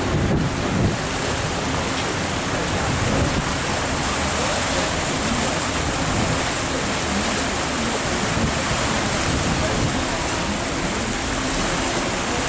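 Steady rushing of wind and churning water aboard a river cruise boat under way, with no distinct events.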